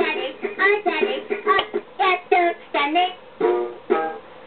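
Doraemon alarm clock playing its alarm: a short recorded song with singing, which stops about four seconds in.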